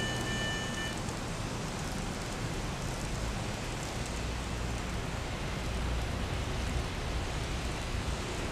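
Level-crossing warning alarm sounding a steady high tone that cuts off about a second in, followed by a steady hiss with a low rumble.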